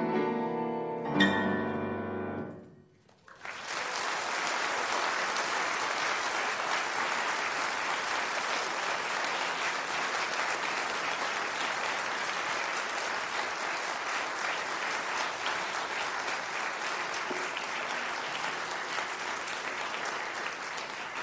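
Pan flute and piano ending a piece on a final chord that rings out and dies away; after a brief silence, an audience applauds steadily and at length.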